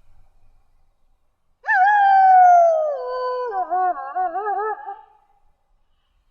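A Mexican wolf howling once: a single long howl that starts high, slides down in pitch and ends in a wavering quaver, lasting about three seconds.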